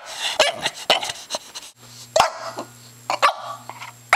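A dog making a string of short, odd vocal noises that come quickly at first, then a few single calls about a second apart.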